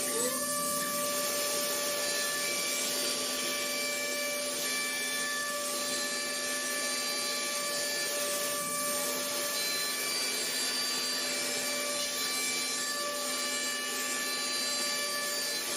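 CNC machine cutting a workpiece: the spindle runs with a steady whine of several pitches over a continuous cutting hiss, and a short rising tone sounds right at the start.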